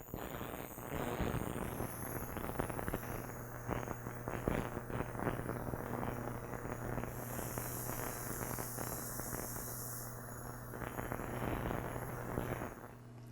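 Heated ultrasonic parts cleaner running with a carburetor body in its bath of water and dish detergent: a steady hum under a dense crackling hiss, with a stretch of higher hiss in the middle.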